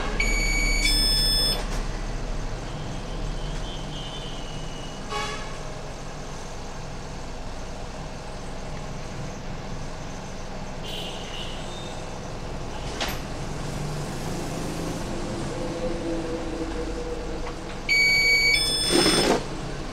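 A high two-note tone, stepping up in pitch, sounds briefly at the start and again near the end over a steady low hum and background noise.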